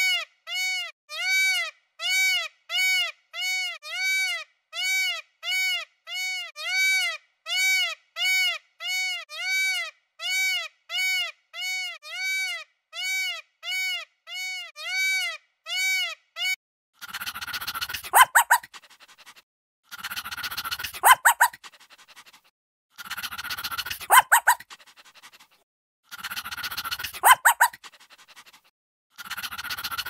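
Peacock calling. First comes a fast, even run of short rising-and-falling hoots, about three every two seconds. After about seventeen seconds it changes to five longer, harsher calls, each about three seconds apart.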